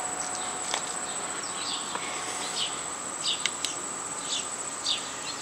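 Light rustles, scrapes and small clicks of a plastic clamshell grip cover being peeled and pressed into place over a motorcycle's handlebar grip, scattered mostly through the second half, over a steady high-pitched insect-like buzz.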